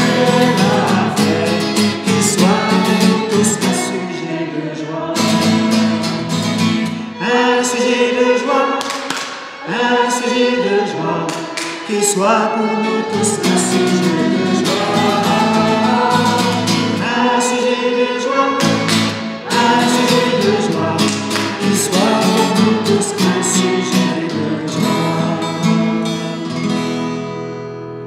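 A man singing a French worship song to strummed acoustic guitar, with a violin accompanying. The music dies away near the end.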